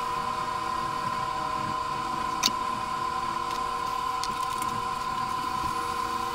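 A steady mechanical hum with a constant high tone runs throughout, from an unseen machine. Over it, one sharp click about two and a half seconds in and a few fainter taps a second or two later, as plastic plant pots and a glass jar are moved and set down on a wooden floor.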